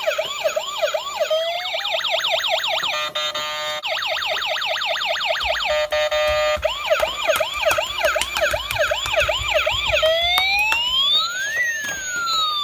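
Battery-powered toy fire engine's electronic siren sounding, switching between fast repeated rising yelps, a brief stuttering tone, and slower rising and falling wails near the end.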